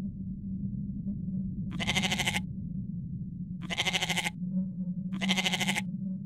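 An animal bleating three times, each call about half a second long with a quavering tremble, spaced roughly two seconds apart, over a steady low hum.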